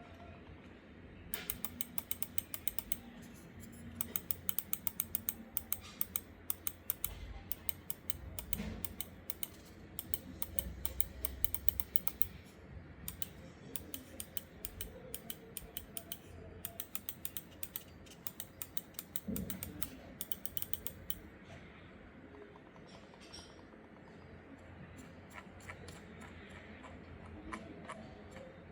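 Logitech G Pro X Superlight 2 Dex gaming mouse buttons being clicked in quick, even runs of several clicks a second, with short breaks between runs. After a lull, a few sparser clicks come near the end.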